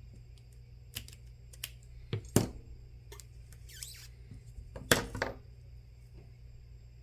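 Scattered small clicks and taps of tools and adhesive tape handled on a phone's plastic frame during a tape job. The sharpest clicks come about two and a half seconds in and again at five seconds, with a short scratchy rustle between them.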